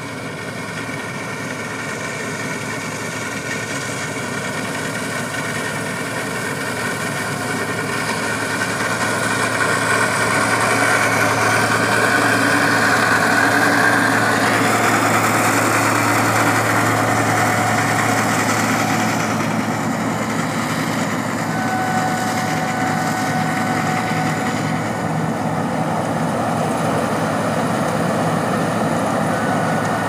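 Combine harvester running while cutting wheat: a steady engine and machinery drone with a low hum. It grows louder over the first dozen seconds as the machine comes closer, then holds steady.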